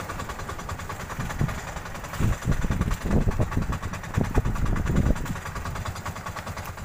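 A small outrigger fishing boat's engine idling steadily over choppy sea, with heavier low rumbles from about two to five seconds in.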